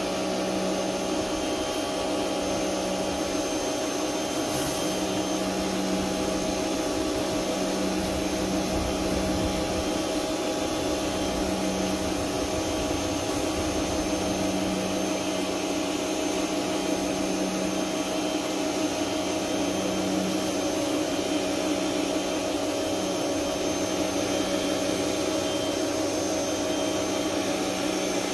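WHOLESUN 3000 PSI electric pressure washer running steadily while driving a surface-cleaner attachment, its electric motor and pump humming over the hiss of the water spraying onto concrete under the cleaner's hood.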